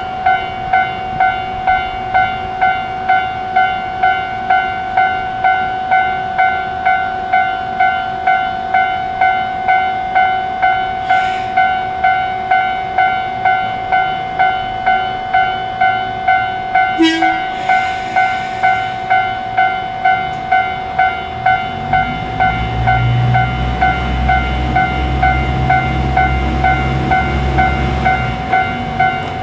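Japanese level-crossing warning bell ringing steadily, about one and a half strokes a second. About 22 seconds in, the low rumble of a KiYa E195 diesel long-rail transport train builds up under the bell as it crosses, dying away near the end. There is a brief sharp sound about 17 seconds in.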